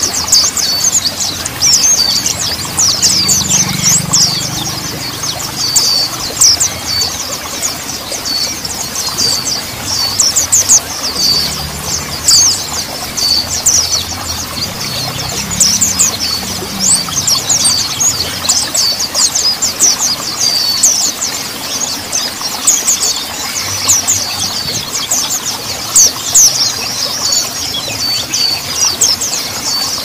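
Mountain white-eye (pleci montanus) song: a dense, nonstop stream of rapid high chirps and quick down-slurred notes.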